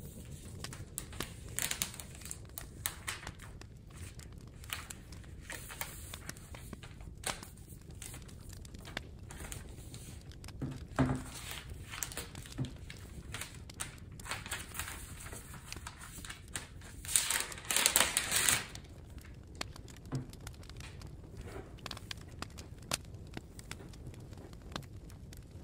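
Thin plastic protective film being peeled off a laptop's aluminium case, crinkling and crackling in scattered bursts. A longer, louder stretch of crinkling comes about two-thirds of the way through, and there are a few soft knocks.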